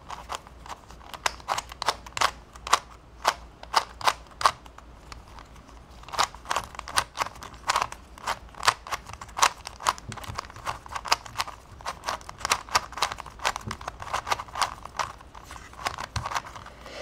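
A plastic 3x3 Rubik's-type puzzle cube being twisted by hand, its layers clicking and clacking several times a second, with a short lull about five seconds in.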